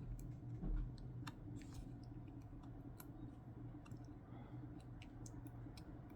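Faint, irregular small clicks and taps as a flex-cable connector is handled and pressed onto an iPhone 12's logic board, over a steady low hum.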